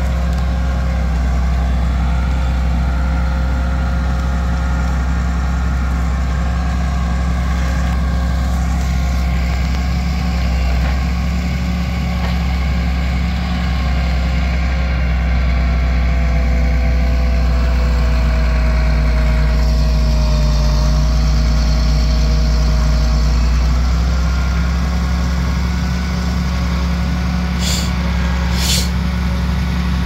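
Log truck's diesel engine running steadily to drive its hydraulic log crane, with a whine that slides slowly in pitch as the crane works. Two short hisses near the end.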